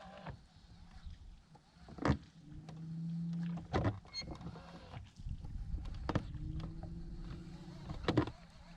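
Electric trolling motor humming in two short runs, each started and stopped with a sharp click or knock.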